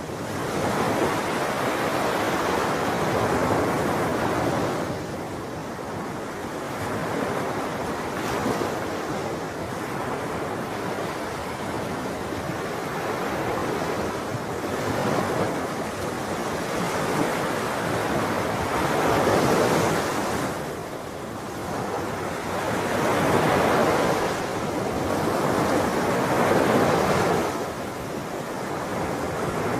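Ocean waves breaking and washing on shore, the surf swelling and falling back every few seconds.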